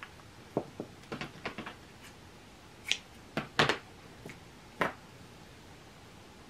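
A dozen or so light clicks and taps over the first five seconds, the loudest near the middle, from handling a spool of sewing thread while drawing off more thread for hand-stitching.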